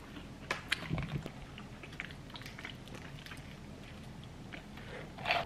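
Eating at a table: chewing, with light crinkles of a paper food wrapper and plastic bag and a few small scattered clicks.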